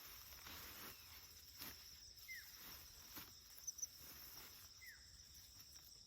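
Faint, steady chirring of insects such as crickets, with a short falling call repeating about every two and a half seconds and a few soft rustles.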